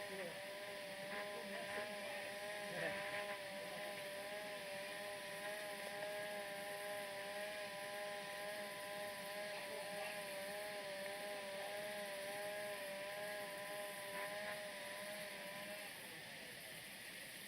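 A small engine running steadily with a slight waver in pitch, cutting off about a second and a half before the end.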